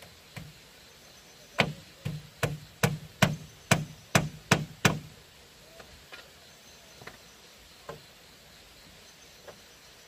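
A tool striking bamboo about nine times in quick, even succession, roughly two and a half strikes a second, each hit with a short hollow ring. A few lighter, scattered taps follow.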